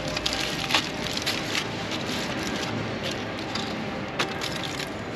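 Aluminium foil crinkling and crackling as a foil-wrapped sandwich is opened by hand, many short crackles one after another.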